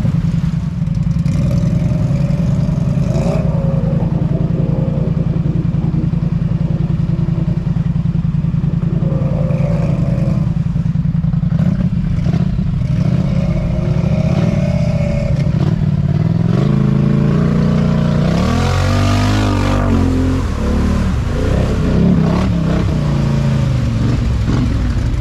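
ATV engine running steadily under way, then revving up and down for a few seconds about two-thirds of the way through.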